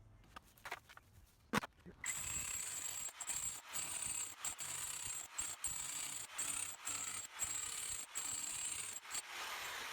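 Milwaukee M18 Fuel SDS-Max rotary hammer starting about two seconds in and running steadily in chisel mode with a scaling chisel, a continuous hammering rattle with a high whine and brief breaks every half second or so. A few sharp clicks come before it starts.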